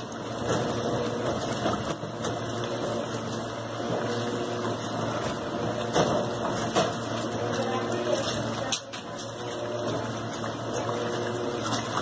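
Electrolux LT15F top-loading washing machine in its agitation stage, the agitator churning clothes in soapy water. A steady motor hum runs under the sloshing water, with a few sharp splashes or knocks.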